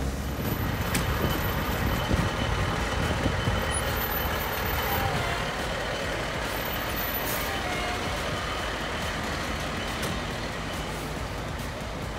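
A fire engine drives slowly past close by, its engine running steadily, with a faint steady high tone through the first several seconds.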